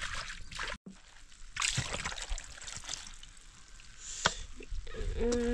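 Scattered knocks and clatter of kitchen work, with a sharp click a little after four seconds in. The sound cuts out completely for a moment about a second in.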